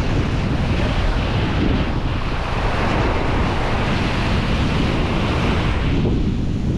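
Small surf breaking and washing up onto a sandy beach in swells of hiss, easing off near the end, under a steady low rumble of wind buffeting the microphone.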